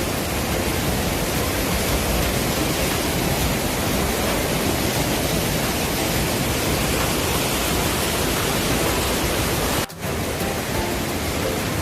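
Steady rushing roar of a mountain waterfall, even and unbroken, with a momentary cut-out about ten seconds in.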